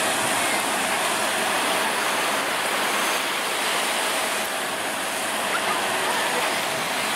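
Shallow sea water and small surf washing at the shoreline: a steady, even rushing noise.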